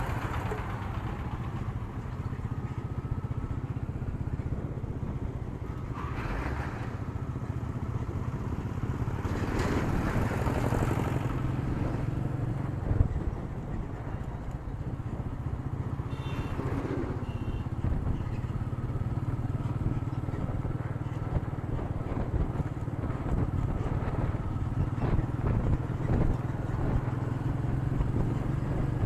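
Royal Enfield Meteor's single-cylinder engine running steadily under way, with wind and road rumble, as picked up by an action camera's built-in microphone. Other traffic swells past a few times.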